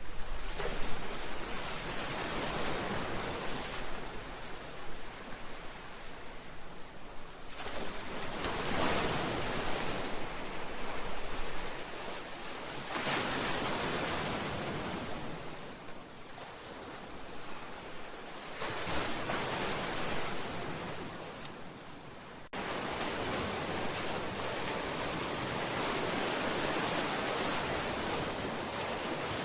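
Sea waves surging in and washing against a seawall and breakwater, a rushing wash that swells and falls back every four to five seconds. About two-thirds of the way through it changes suddenly to a steadier, even rush.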